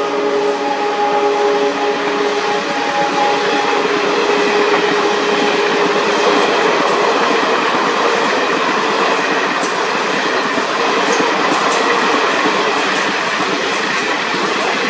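Maharajas' Express coaches passing close by at speed: a steady rush of wheels on rail, with sharp clicks over the rail joints from about halfway. The locomotive's horn tone fades out in the first few seconds.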